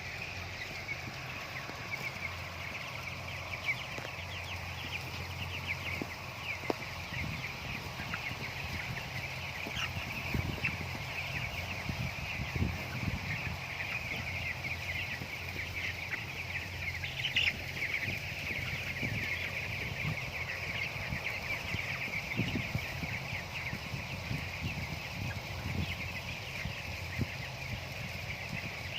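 A flock of broiler chickens cheeping continuously, a dense chorus of short high peeps, with scattered soft knocks.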